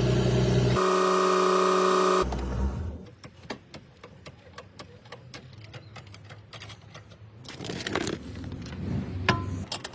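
A steady mechanical hum for about two seconds, shifting in pitch partway through and then stopping. After it come a series of light clicks and knocks.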